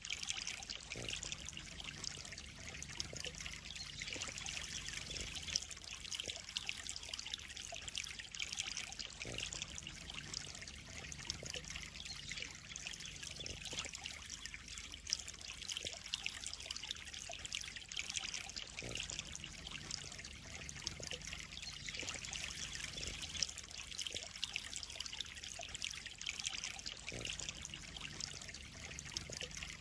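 Water trickling steadily into a koi pond, with a continuous fine patter of small splashes.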